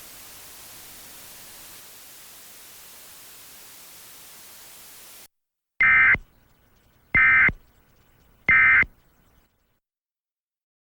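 Steady hiss that cuts off about five seconds in, followed by three short, identical bursts of EAS/SAME digital data, about 1.3 seconds apart: the end-of-message code that closes an Emergency Alert System broadcast.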